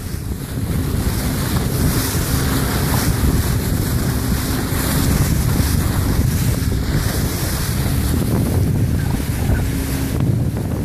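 Wind buffeting the microphone over the steady rush and splash of a boat's bow wave cutting through open sea, with a faint low hum beneath.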